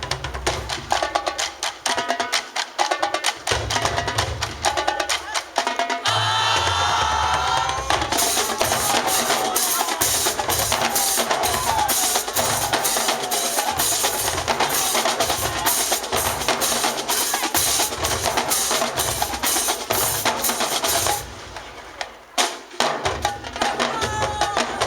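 Marching band drumline playing a fast cadence: snare drums, bass drums and sharp stick clicks. The drumming drops away briefly a little over twenty seconds in, then starts again.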